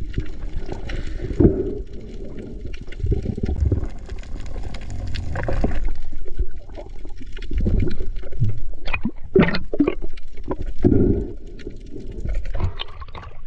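Water rushing and gurgling, heard underwater, in uneven surges, with several sharp clicks about two-thirds of the way through.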